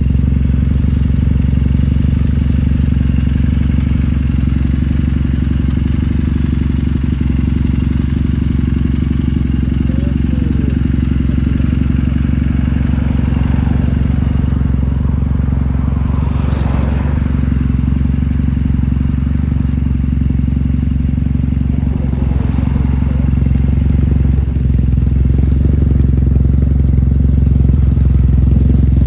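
2015 Triumph Bonneville T100's air-cooled parallel-twin engine idling steadily through its exhaust, a little louder over the last few seconds.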